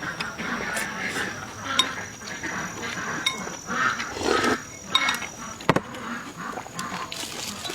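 Close-up eating sounds: chewing, with utensils clicking and clinking against a dish several times. A thin steady high tone runs underneath and stops a little past halfway.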